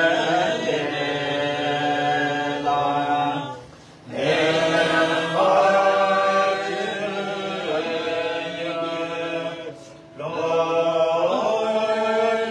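Tibetan Buddhist prayer chanting in long, drawn-out melodic phrases, pausing briefly for breath about four seconds in and again about ten seconds in.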